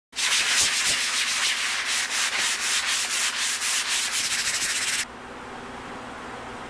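Hand sanding of a stripped wooden tabletop with a sanding block, in quick back-and-forth strokes about three a second. The rasping stops abruptly about five seconds in, leaving a fainter steady background.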